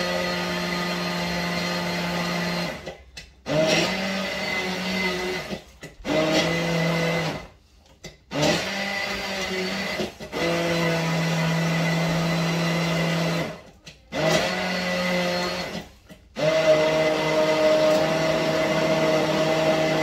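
Small electric kitchen motor, such as a blender or chopper, run in about seven pulses of two to four seconds each, with short stops between, while ingredients for pelmeni filling are processed.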